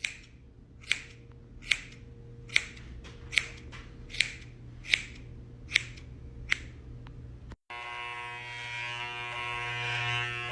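Sharp clicks repeating evenly, about nine in all, a little under a second apart, over a low steady hum; after a sudden break near the end, a louder steady buzz with many even tones takes over.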